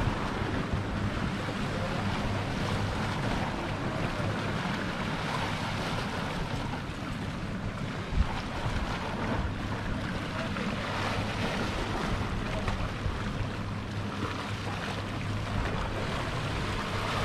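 Sea waves washing against shore rocks, with wind buffeting the microphone; a single sharp knock about eight seconds in.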